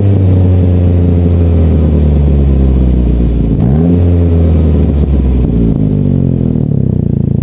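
Saab 9-5 engine held at raised revs, blipped up again about halfway through, then dropping back to idle near the end. The exhaust is loud and raw from a huge leak at a broken flex pipe.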